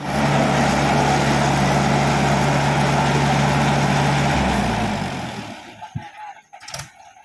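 Mahindra tractor's diesel engine running steadily under load, then its note drops about four seconds in and dies away. Two short knocks follow in the quiet near the end.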